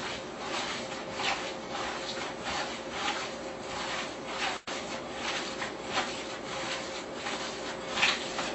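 A bare hand kneading raw ground turkey into a rehydrated cat-food mix in a glass bowl, the way meatloaf is mixed, makes irregular soft squishing and rubbing strokes.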